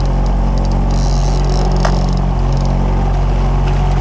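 Boat engine running steadily at trolling speed, a continuous low drone, with the hiss of churning wake water behind the stern.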